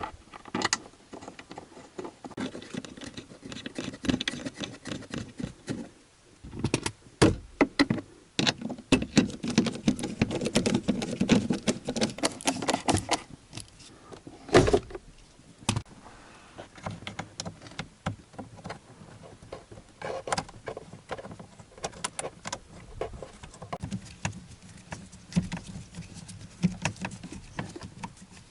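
Hands working plastic interior parts: irregular clicks, knocks and rattles with rustling between them, and one louder knock about halfway through.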